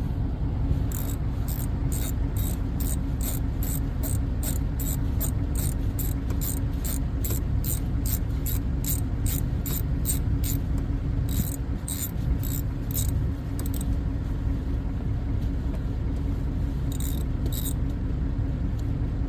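Ratchet wrench clicking steadily, about two to three clicks a second, as a 10mm bolt on a door handle is loosened. It stops after about thirteen seconds and clicks twice more near the end, over a steady low hum.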